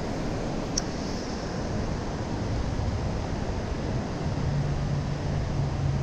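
Steady rush of creek water running over rapids. A faint low hum comes in about halfway through.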